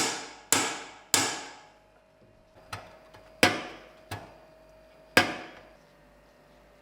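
Seven hammer strikes on metal at uneven intervals, the first three and the one about five seconds in the loudest. Each strike fades away quickly, and the struck piece is left with a faint steady ringing tone.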